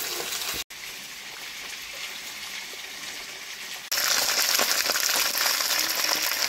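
Rohu fish pieces frying in hot oil in an aluminium wok, a steady sizzle. It cuts out for an instant under a second in, then grows suddenly much louder about four seconds in.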